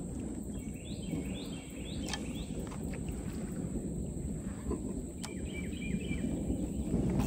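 A bird calling in a quick run of four or five short, rising notes about a second in, and another run a few seconds later, over a steady low background rumble; a couple of faint sharp clicks.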